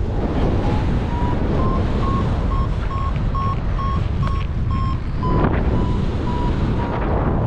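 Paragliding variometer beeping about twice a second, its pitch rising a little and then falling back, the sound of the glider climbing in lift. Heavy wind noise on the microphone runs underneath, with a louder gust about five seconds in.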